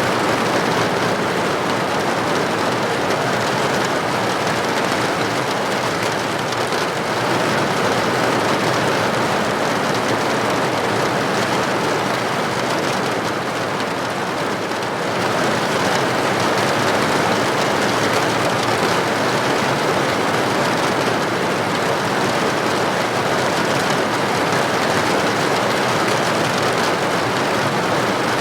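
Steady, heavy rain falling, a dense even hiss that eases a little and then picks up again about halfway through.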